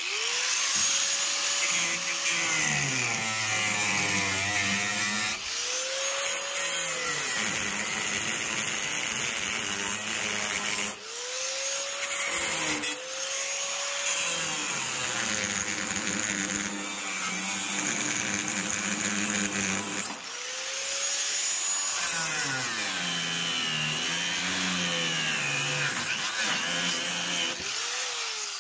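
Angle grinder with a thin cutoff disc cutting through rusted bolts in a steel wheelbarrow tub. The motor's whine climbs as it spins up, then sags and wavers as the disc bites into the metal. It stops and starts again several times.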